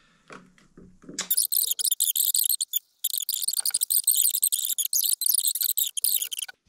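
Paper towel being crumpled and rubbed between gloved hands, a dense, crackly rustle that starts about a second in, breaks briefly, then stops just before the end.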